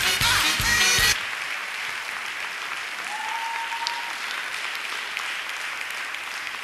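Backing music with singing cuts off sharply about a second in, leaving a congregation applauding steadily. One short, held high note rises out of the clapping about three seconds in.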